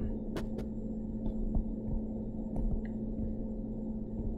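Steady low electrical hum of the recording setup, with a few faint taps from a stylus writing on a tablet.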